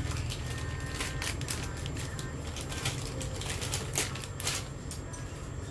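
Irregular light clicks and knocks of small hard RC wheel parts, the wheel lock ("padlock") pieces, being handled, with a few sharper knocks around the middle, over a steady low hum.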